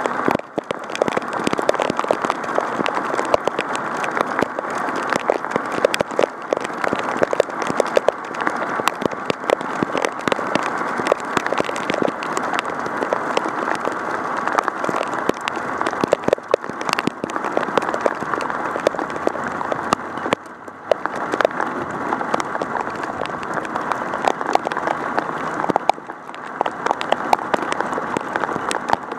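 Heavy rain pelting an action camera, a dense crackle of drops striking close to the microphone. It eases briefly about 20 s and 26 s in, then picks up again.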